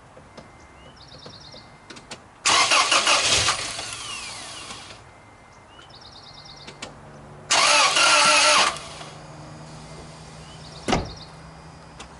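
A truck's starter cranks the engine on a freshly installed battery in two goes, about two seconds in and again near eight seconds; after the second crank the engine settles into a steady idle. A single sharp knock comes near the end.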